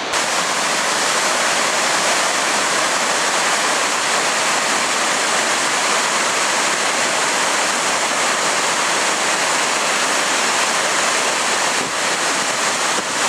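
Nugget Falls, a large waterfall, pouring with a steady, loud rush of falling water.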